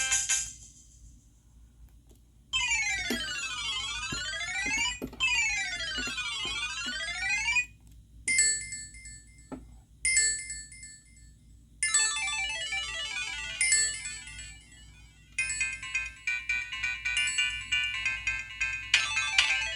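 Several downloaded ringtones played one after another on a Samsung SGH-T629 mobile phone, each a short electronic tune of a few seconds with brief pauses between them. The first starts about two and a half seconds in: a sweeping up-and-down arpeggio heard twice. Busier melodies follow.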